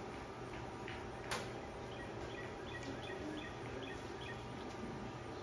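A bird chirping in a quick series of short, high notes from about two seconds in, over a faint steady background hum. A single sharp click about a second in.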